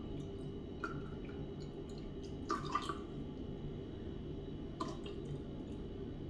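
Vinegar dripping into a glass jar of water: about four small, separate drips and plinks over a steady low hum.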